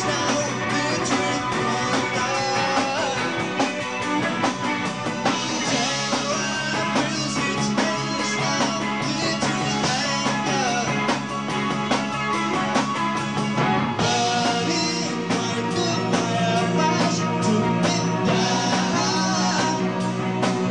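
A progressive rock band playing live, electric guitar over a drum kit, with cymbals that thin out briefly about two-thirds of the way through.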